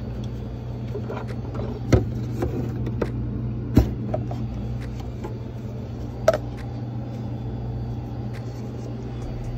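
Paper cups being pulled from a stacked dispenser and set on a counter: three sharp clicks and knocks, about two, four and six seconds in, over a steady low machine hum.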